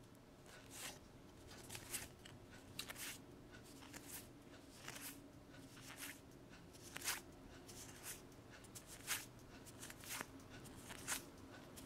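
Freshly opened Magic: The Gathering trading cards being slid through the hands, a faint, sharp card swish about once a second as each card is moved across the stack.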